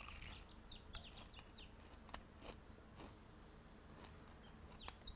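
A few faint crunches as a cornmeal-crusted fried tomato slice is bitten and chewed, with birds chirping in the background.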